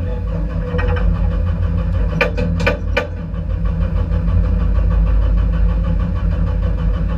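Race car engine running steadily, heard from inside the gutted, roll-caged cabin. Four short sharp knocks come a little over two seconds in.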